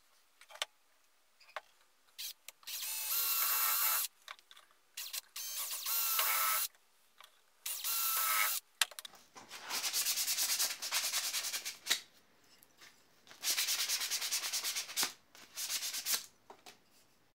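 A wooden dowel being filed flat by hand and then drilled. It comes as a string of separate rasping, grinding stretches, each one to two seconds long, with short pauses between them.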